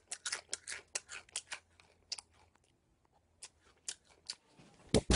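Noisy open-mouthed chewing: a run of short, wet smacks several times a second, then a pause and a few more scattered smacks.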